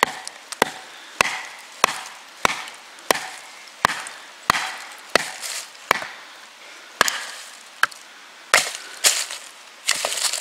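Bushcraft knife being batoned through a piece of dry wood with a wooden baton: sharp wooden knocks on the knife's spine, about one and a half a second. The piece splits in two near the end.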